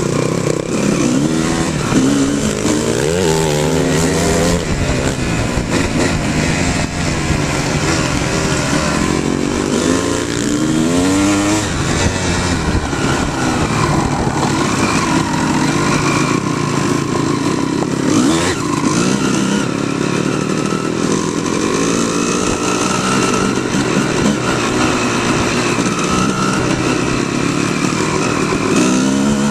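Off-road dirt bike engine riding a trail, its note climbing and dropping again and again as the throttle opens and closes through the gears.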